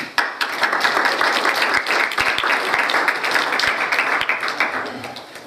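Audience applauding, with a dense patter of claps that starts just after the talk ends and dies away near the end.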